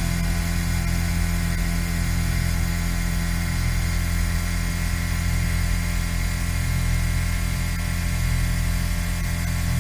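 Exechon XMini machine tool robot surface-milling titanium: a steady running sound of the spindle and cutter, with a constant low hum and fixed tones that do not change.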